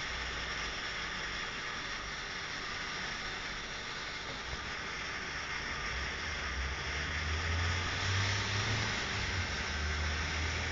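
Outdoor wind noise: a steady hiss, with low rumbling from wind on the microphone that grows stronger about six seconds in.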